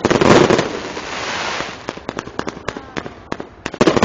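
Fireworks display: aerial shells bursting overhead, with loud bangs at the start and again near the end, a hissing crackle between them, and a quick run of sharp cracks in the second half.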